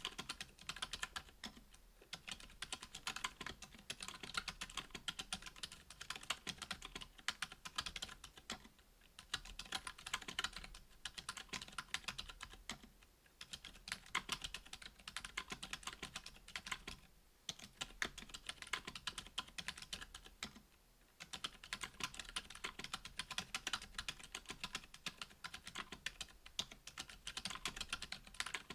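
Continuous typing on a Duck Orion V2.5 mechanical keyboard with stock, unlubed Gazzew U4 Boba silent tactile 62g switches on an FR-4 plate, under GMK keycaps. It is a dense run of keystrokes with a few short pauses.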